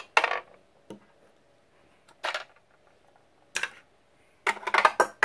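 Small hard objects clattering and rattling as they are handled, in four short bouts of quick clicks, the longest and loudest near the end.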